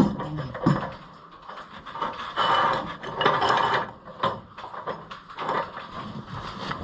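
Irregular clinking, scraping and clicking of a combine header's metal gathering chain being worked by hand around its sprockets.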